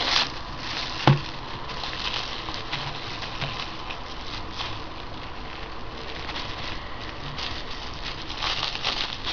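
Plastic shrink wrap crinkling and rustling as hands grip and pick at a sealed package, with a single sharp click about a second in.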